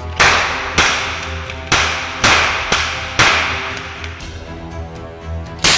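Toy cap guns firing caps: about seven loud, sharp bangs, irregularly spaced, each ringing out in the closed room, with a pause of a couple of seconds before the last.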